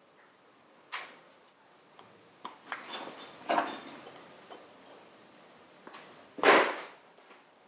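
Small metal parts of a motorcycle handlebar clamp and its split roll pins clicking and knocking against each other and a steel workbench as they are handled. There are scattered light clicks, a small clatter about three and a half seconds in, and a louder scrape about six and a half seconds in.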